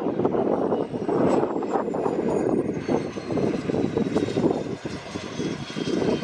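Airplane engine noise from a fixed-wing aircraft at an airfield, a steady dense rumble with a thin high whine that slowly falls in pitch.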